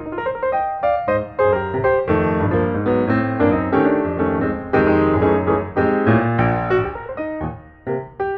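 Background piano music, many notes played in quick succession.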